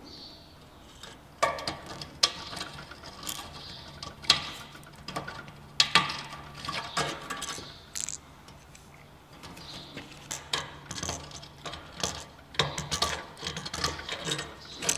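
A hand deburring tool's swivel blade scraping the edges of freshly drilled holes in a square metal tube, in a series of short scrapes and small clicks with brief pauses between strokes.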